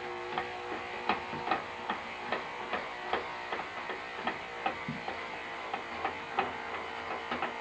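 Corded electric hair trimmer running with a steady buzz as it shaves leg hair, with frequent short irregular ticks over the buzz.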